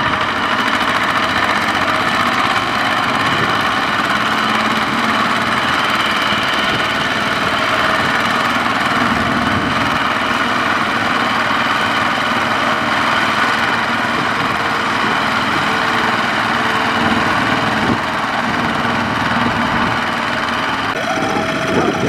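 Single-cylinder diesel engines of two-wheel walking tractors running steadily.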